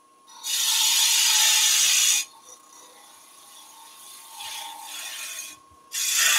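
Turning tool cutting the inside of a spinning wooden goblet cup on a lathe: a loud hissing cut for about two seconds, a quieter stretch, then the cut starting again near the end, with a faint steady tone underneath.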